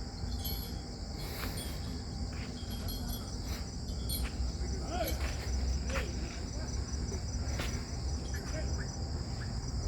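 Crickets chirping steadily in a continuous high-pitched trill, over a low rumble and a few faint clicks.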